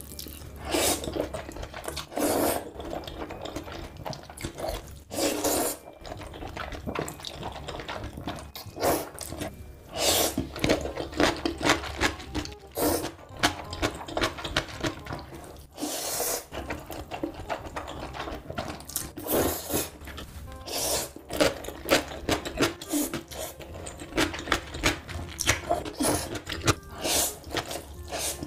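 A person slurping stir-fried instant noodles with mouth sounds, heard up close as a dozen or so loud, short slurps at irregular intervals, with quieter mouth sounds between them.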